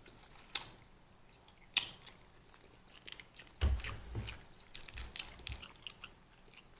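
Close-miked chewing and biting of seafood boil, with scattered sharp clicks and crackles and a few low thumps around the middle.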